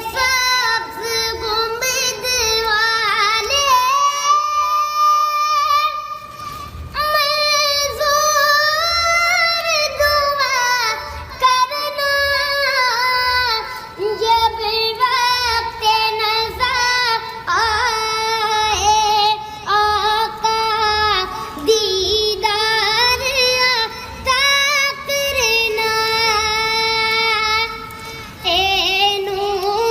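A high, young-sounding voice sings a hamd or naat melody with long, ornamented, gliding phrases, over a soft, regular low beat.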